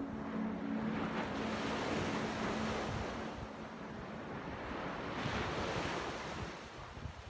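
Sea waves breaking and washing up on the shore, the surf swelling twice, with wind buffeting the microphone.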